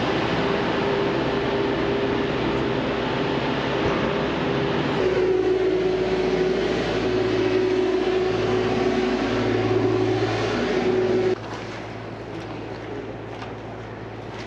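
Steady mechanical hum with one constant whine over street noise, cutting off suddenly about eleven seconds in and leaving quieter street ambience with a few faint clicks.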